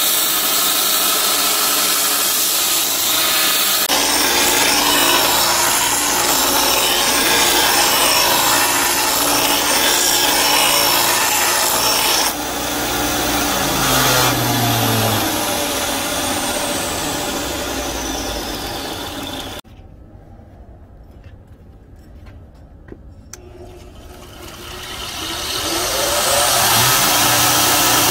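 Electric grinders working a steel axe head: a belt grinder grinding the blade edge, then a bench grinder's motor spinning down with a steadily falling whine. After a few quiet seconds with some clicks, a grinder spins back up, its whine rising to full speed near the end.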